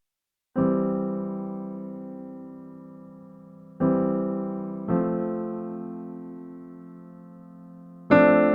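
Background music of slow piano chords, each struck and left to ring and fade away, four in all, after a brief moment of silence at the start.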